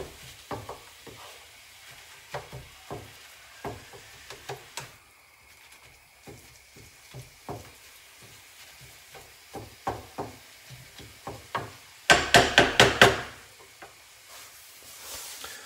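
Wooden spatula stirring and breaking up minced pork in a frying pan, with soft irregular knocks against the pan over a faint sizzle. About twelve seconds in, a quick run of about half a dozen loud clattering strokes of the spatula against the pan.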